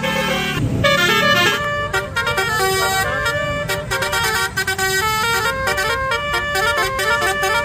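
Multi-trumpet 'telolet basuri' bus horn playing a fast tune, several horn notes sounding together and stepping quickly from note to note.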